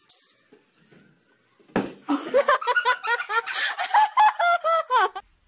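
Loud, high-pitched laughter in a fast run of short rising bursts, starting about two seconds in after a near-quiet start.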